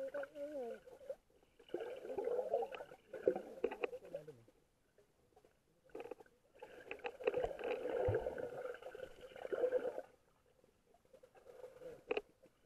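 Muffled underwater rushing and gurgling of river water heard through a submerged camera, in two long stretches with quiet gaps between, and a short sharp knock near the end.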